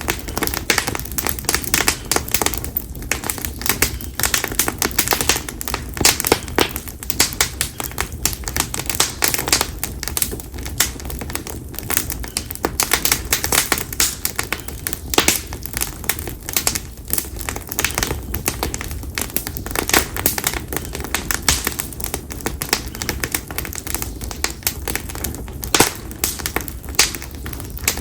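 Campfire of split konara oak (Quercus serrata) firewood crackling, with a dense, irregular run of sharp pops and snaps over a low rumble of the burning fire.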